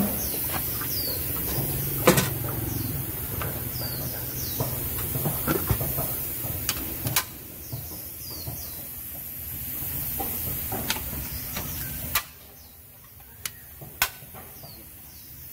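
Sharp plastic and metal clicks and knocks as the Toyota Zace's air filter housing lid and its spring clips are handled, over a steady background hum that drops away about twelve seconds in. Small birds chirp in short calls throughout.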